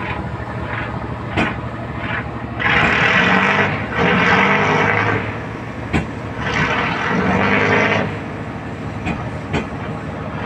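Wooden fishing boat's diesel engine running with a steady low beat, revved hard three times in quick succession from about two and a half seconds in to about eight seconds in, each rev louder and harsher, as the boat gets under way.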